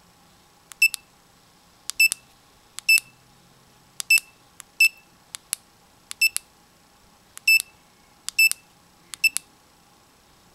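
Lucky FF518 wrist fish finder watch giving a short high beep with each button click as its settings menu is stepped through: about ten click-beeps, irregularly spaced roughly once a second.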